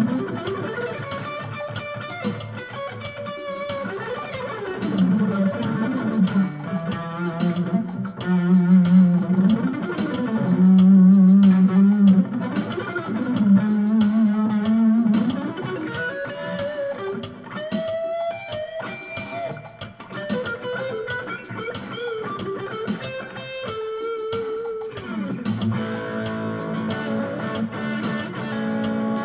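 Electric guitar with ceramic pickups playing a lead line of bent, sliding and held single notes through a Roland Cube-10 amp on its crunchy Classic Stack setting, over an Alesis drum machine's Latin-funk groove.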